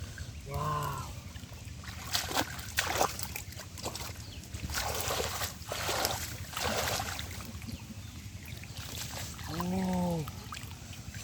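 Shallow water splashing and sloshing in several bursts, stirred while hand fishing. A short pitched 'waa' call that rises then falls comes about half a second in, and another near the end.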